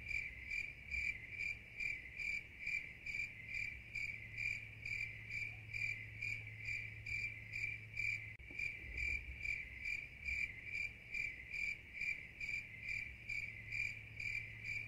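Cricket chirping, a steady run of evenly spaced chirps at about two or three a second, all on one high pitch, over a faint low hum. It is the stock 'crickets' sound effect for an awkward silence.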